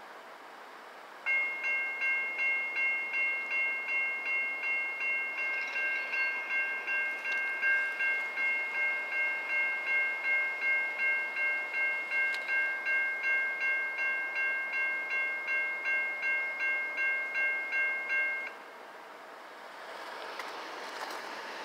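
Railroad grade-crossing warning bell ringing steadily, about two strikes a second, starting about a second in and stopping a few seconds before the end. A steady rushing rumble from the approaching train then comes up.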